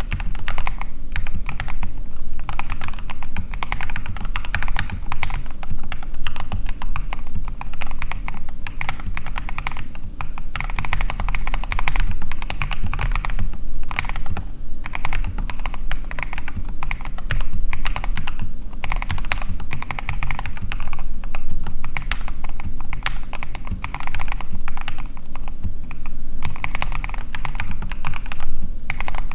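Custom mechanical keyboard with Gateron Clear linear switches being typed on quickly and continuously, a dense run of keystrokes with only brief pauses.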